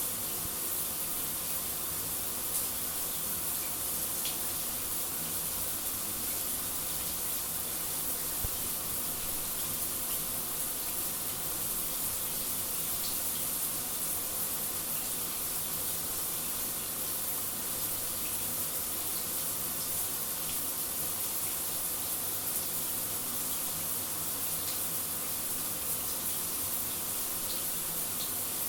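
A shower running steadily: an even hiss of falling water, with a few faint ticks now and then.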